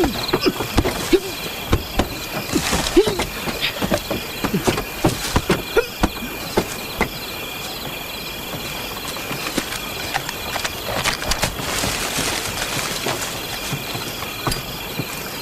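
Night insect ambience, crickets trilling steadily, with scattered clicks and knocks over the first half.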